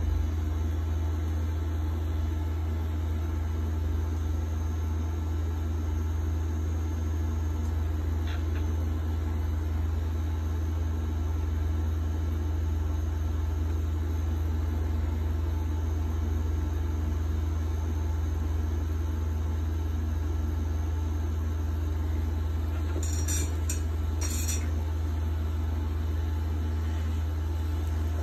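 Pen-style rotary tattoo machine running with a steady low buzz as it works ink into skin, with a few short clicks near the end.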